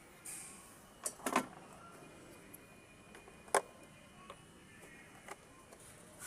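A brief hiss, then a few sharp clicks and knocks, two close together about a second and a half in and a single loud one about three and a half seconds in, with fainter ticks between.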